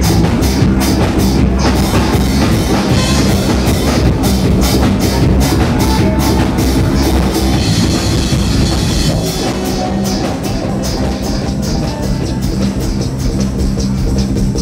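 A live band playing loud music with a drum kit keeping a steady beat over bass and electronics; the beat drops back for a moment past the middle, then comes back in.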